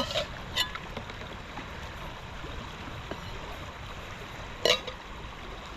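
Steady rush of river water flowing. A sharp click comes about half a second in, and a louder one near the end.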